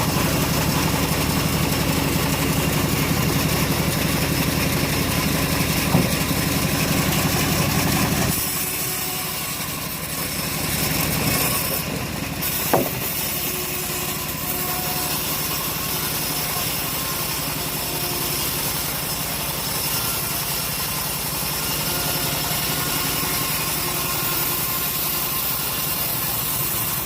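An engine running steadily, deep and heavy for about the first eight seconds, then lighter and quieter. Two short sharp knocks stand out, about six seconds in and near thirteen seconds.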